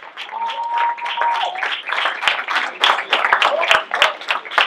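Audience applauding, with many people clapping. One voice holds a high note for about a second near the start.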